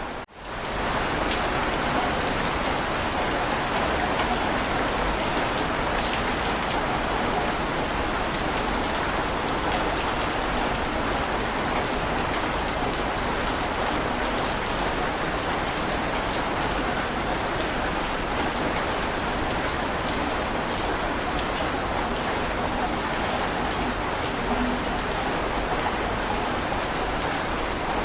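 Heavy rain falling steadily, a dense even patter with scattered single drop ticks. The sound drops out for a split second at the very start, then returns at full level.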